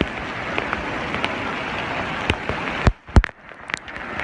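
Heavy rain falling as a steady hiss, with a few sharp knocks near the end, the loudest about three seconds in.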